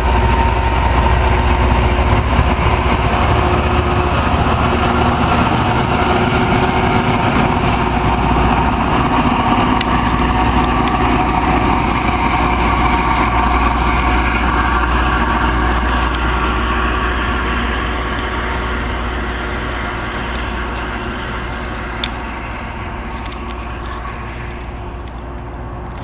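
Loram rail grinder train's diesel engines running as the train moves along the track, loud and steady, then fading gradually over the last ten seconds.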